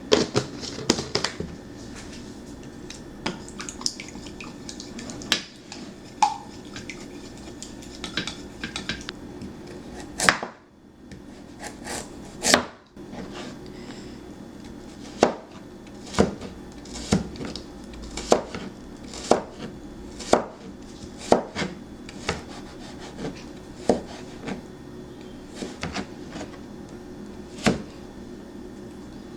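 Kitchen clatter of cooking utensils: sharp knocks and taps of metal on wood and metal. About halfway through they settle into a steady beat of roughly one knock a second, over a constant low hum.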